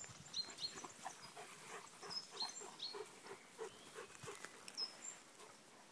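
A dog panting, about three soft breaths a second, with short bird chirps now and then.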